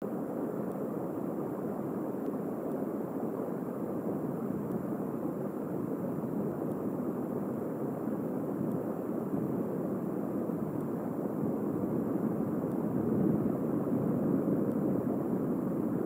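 Steady low outdoor rumble, the kind of wind and distant background noise an exposed outdoor microphone picks up, growing slightly louder in the last few seconds. No pecking or bird calls stand out.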